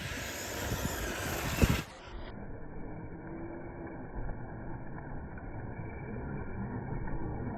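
Radio-controlled off-road cars running on a dirt track, a steady mechanical noise with a loud thump at about a second and a half. After about two seconds the sound turns dull and muffled.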